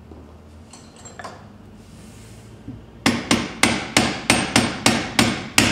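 A hammer striking down on the top of the shaft and gear stack of a sequential gearbox: about nine sharp taps, roughly three a second, starting about three seconds in.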